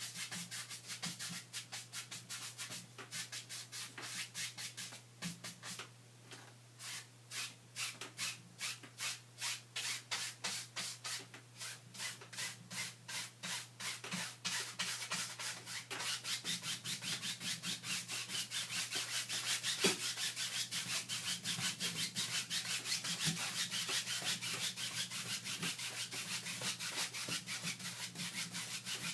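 Back-and-forth rubbing strokes on a surface, about two a second at first, then faster and denser from about halfway in, over a steady low hum.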